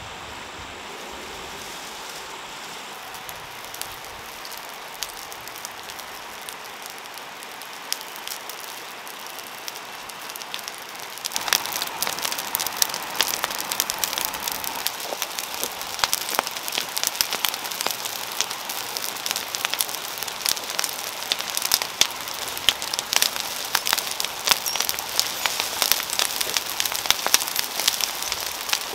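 A heap of dry brush and vine cuttings burning, crackling with many sharp pops. The crackling starts suddenly about eleven seconds in, after a soft steady hiss with only an occasional snap, and stays dense and loud.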